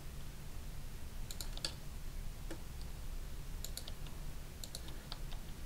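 Computer keyboard keys and mouse buttons clicking lightly in a few scattered clusters, over a low, steady hum.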